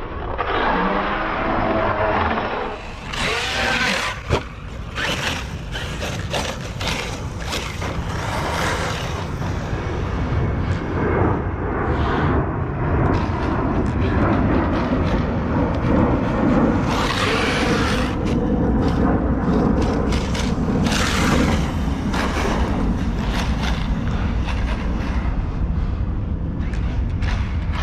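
Arrma Kraton EXB RC truck driven hard: the brushless motor whines up and down in pitch, with scrabbling and several sharp knocks from jumps and landings. The drivetrain has a clicking that the owner puts down to grinding internals or the new rear diffs.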